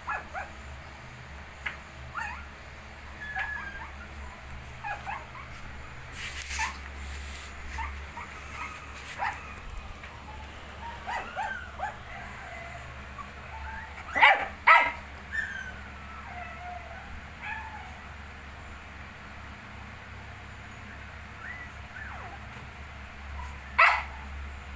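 Young puppies, 19 days old, whimpering and squeaking in short high calls, some sliding in pitch, with two louder yelps in quick succession about halfway through and another near the end.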